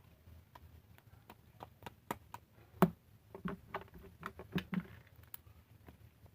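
A series of light taps and knocks, clustered between about two and five seconds in, several of them with a short dull thud.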